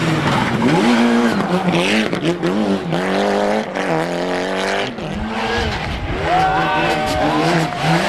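Mitsubishi Lancer Evolution rally car's turbocharged four-cylinder engine at full throttle as it drives past, the engine note climbing in pitch and dropping back several times as it changes gear, with a few sharp cracks.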